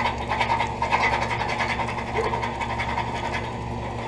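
Steady low hum of a running York central air conditioner condenser. Over it comes irregular scratching and rubbing as the inside of the switched-off unit beside it is scraped clean.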